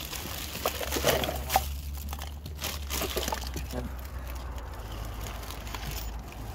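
Thin plastic bag crinkling and rustling as it is handled and emptied, with scattered light clicks and knocks of plastic bottles and tubes landing on the pavement.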